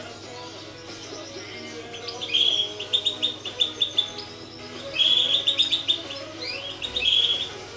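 Goldfinches chirping in short bursts of rapid, high twittering notes, several bursts in a row with a few quick upward slides. Background music with held tones runs underneath.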